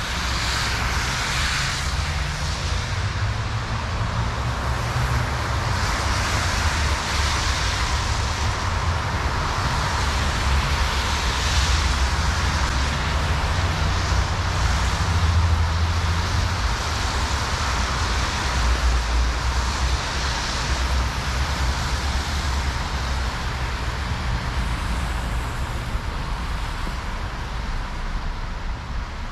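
Street traffic on a wet road: car tyres hiss past, swelling and fading every few seconds, over a steady low rumble.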